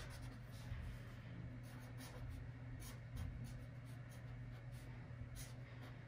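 Felt-tip marker writing on paper: faint, irregular scratchy strokes.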